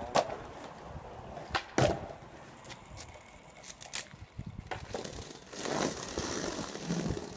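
Skateboards on brick paving: sharp clacks of boards popping and landing, near the start, about two seconds in and about four seconds in, then the rumble of wheels rolling over the bricks as a skater rides close past.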